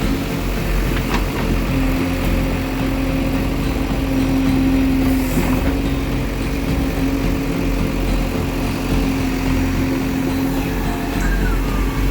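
Diesel engine of a heavy earthmoving machine running steadily at a constant speed, with a steady hum over a low rumble.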